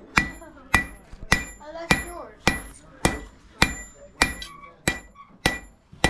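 Blacksmith's hammer striking iron on an anvil in a steady rhythm of just under two blows a second, each blow with a short metallic ring.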